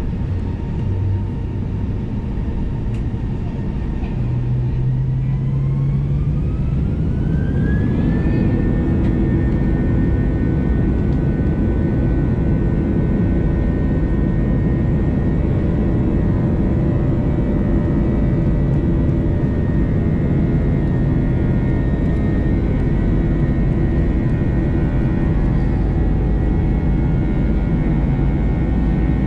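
Airbus A321 turbofan engines heard from a window seat in the cabin over the wing, spooling up for takeoff. A whine climbs in pitch from about four to eight seconds in, then holds steady at takeoff thrust over a loud rumble as the plane rolls down the runway.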